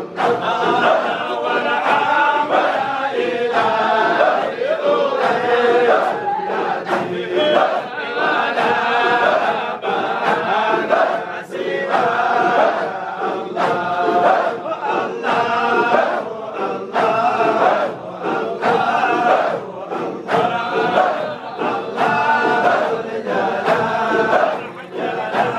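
A crowd of men chanting dhikr together, many voices repeating the same short phrase in a steady rhythm.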